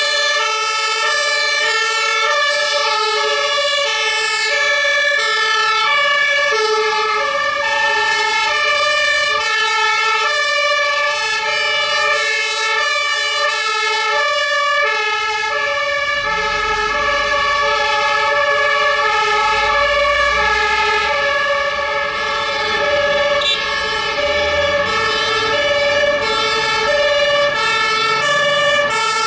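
German two-tone sirens (Martinshorn) of fire brigade emergency vehicles on an emergency run, alternating between a high and a low note, more than one sounding at once. About halfway through, a vehicle's low engine rumble joins as it passes close.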